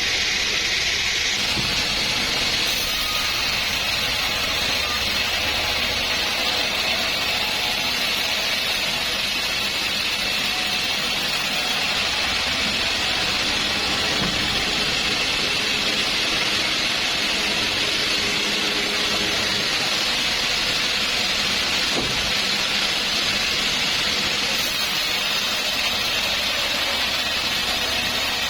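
Sawmill saw running steadily through a trembesi log, a constant high hissing noise.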